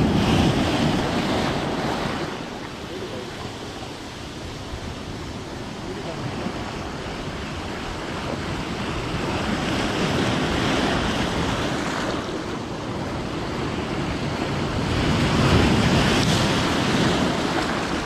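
Heavy sea swell breaking and washing over the rocks at the water's edge, surging three times, with wind buffeting the microphone.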